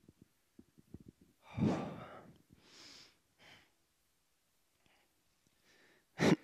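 A man's breathing during a pause in his speech: a few small clicks, a loud sighing breath out about a second and a half in, softer breaths after it, and a short sharp breath near the end.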